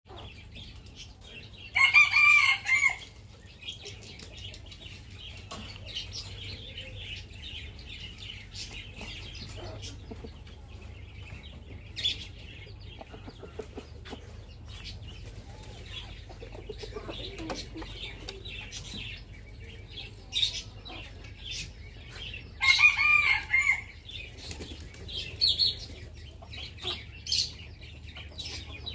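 Rooster crowing twice, a short crow each time: once a couple of seconds in and again about twenty seconds later. Fainter short chirps of other birds come in between.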